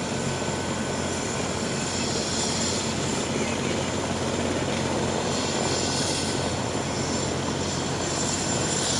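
Helicopter running on the ground, its engines and rotor going steadily, with a thin high whine over a low hum.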